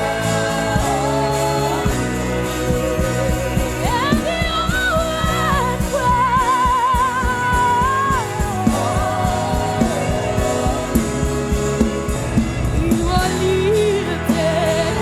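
Live gospel worship music: a lead voice sings a sustained melody with wide vibrato over a band with a steady bass and drums.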